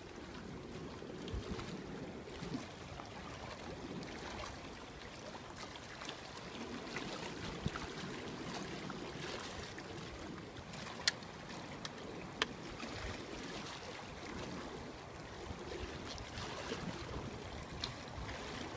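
Sea water washing against jetty rocks, with wind on the microphone, as a steady even noise. Two sharp clicks come about a second and a half apart a little past the middle.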